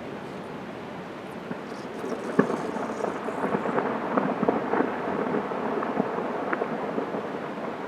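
Crackling and rustling of gear being handled close to the microphone, starting about two seconds in, over a steady rushing background.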